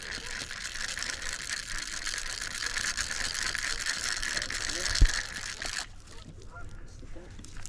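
Fishing reel clicking rapidly and continuously, then stopping abruptly near the end; a single dull thump comes just before it stops.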